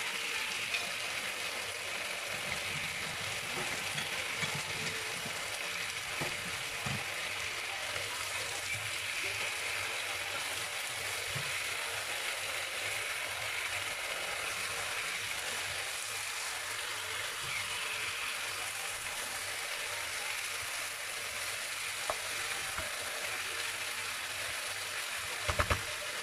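Chicken pieces sizzling steadily in a nonstick frying pan while being stirred with a wooden spatula. The spatula knocks against the pan now and then, with a quick cluster of knocks near the end.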